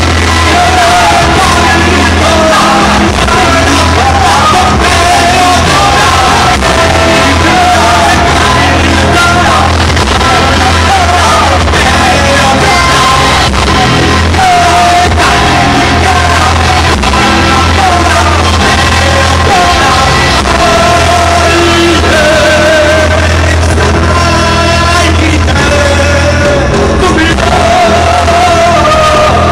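Loud live music: a wavering, chant-like singing voice over a steady deep bass drone.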